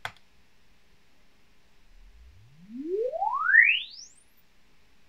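A mouse click, then about two seconds in a Room EQ Wizard sine sweep test tone rising steadily from a deep bass hum to a very high whistle over about two and a half seconds: the logarithmic sweep of an impedance measurement on a 12-inch subwoofer driver.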